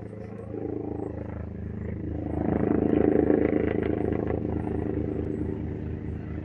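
An engine running steadily with an even, pulsing note, growing louder to a peak about three seconds in and then easing off.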